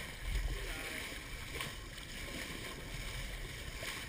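Water rushing and lapping along the hull of a small sailboat under sail, a CLC Pocketship, heard as a steady low rumble with a soft hiss over it.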